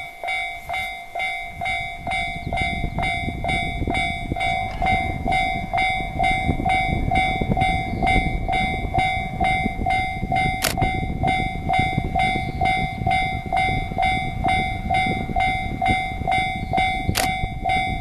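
Japanese railway level-crossing alarm starting up and ringing its electronic clang at about two strikes a second, the warning that a train is approaching.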